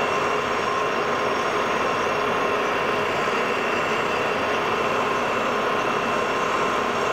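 Tool post grinder's electric motor running steadily with a constant whine, its wheel grinding the hardened jaws of a worn 3-jaw chuck under power feed while the Lodge and Shipley lathe turns the chuck slowly, truing the jaws to cut down run-out.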